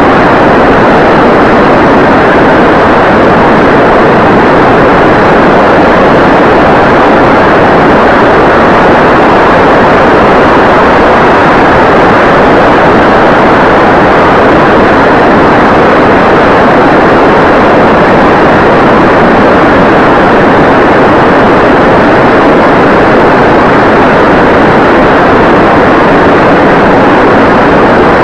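Steady, loud rush of wind and motor-and-propeller noise from a small foamboard RC plane in flight, as heard through its onboard 808 keychain camera's microphone. The noise holds even throughout, with no change in pitch.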